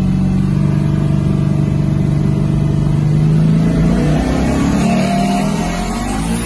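The twin-turbo 1973 Ford XB Falcon's engine heard from inside the cabin, running hard at speed, its pitch climbing about four seconds in.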